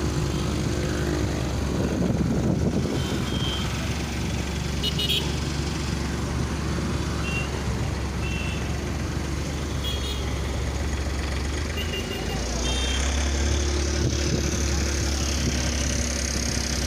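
Motor vehicle engines running steadily in road traffic, with short high beeps now and then. The engine hum grows louder about twelve seconds in.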